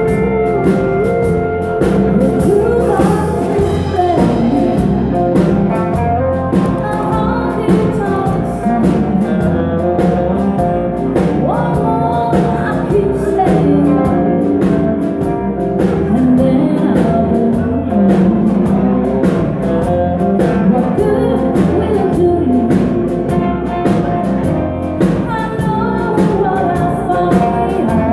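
Live band playing: a steady drum-kit beat under guitar, with a voice singing.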